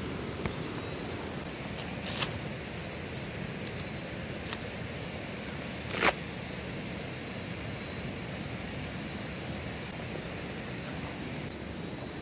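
Tent being pitched: a few sharp clicks from the poles and the fly's clips, the loudest about six seconds in, over a steady rushing outdoor background.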